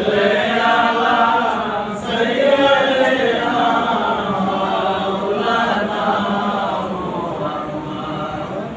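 Male voices chanting an Arabic supplication (dua) together in drawn-out melodic phrases, led by one man on a microphone.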